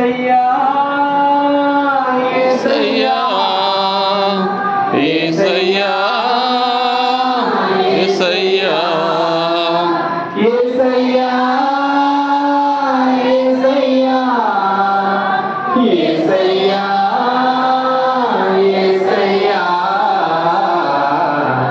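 A slow Telugu Christian hymn sung in long, drawn-out phrases, with notes held for a second or more between pitch steps.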